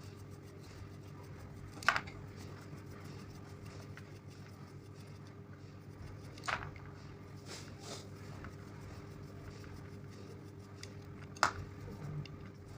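Three sharp clicks or knocks, a few seconds apart, of parts and tools being handled during an angle grinder repair, over a steady low hum.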